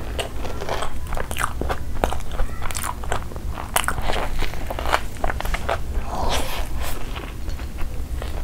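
Close-miked eating: many crisp, crunching bites and chewing of fried, breaded mozzarella cheese balls, a burger and a chicken shawarma wrap, over a low steady hum.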